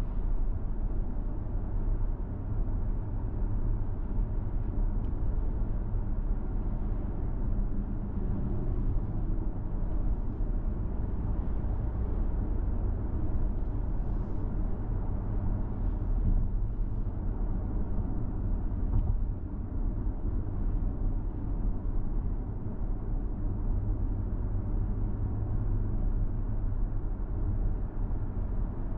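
Steady low rumble of a car driving on an asphalt road: tyre and engine noise at cruising speed.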